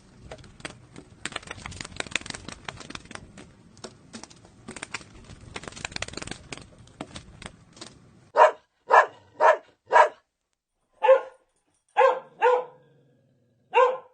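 A dog barking eight short barks in the second half, after several seconds of quieter scratchy, crackling noise.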